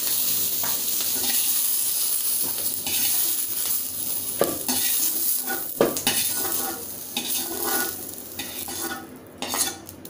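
Capsicum and onion pieces sizzling in hot oil in a kadai while a metal spatula scrapes them out into a steel bowl, with a few sharp clinks of spatula on metal. The sizzle fades near the end as the pan is emptied.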